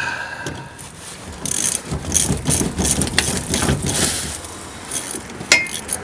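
Socket ratchet clicking rapidly as a rusted truck cab mount bolt is worked out, for about three seconds, then a sharp metallic clink near the end.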